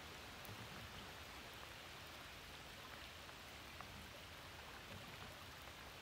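Faint, steady hiss of shallow river water running over a riffle, with a few light ticks.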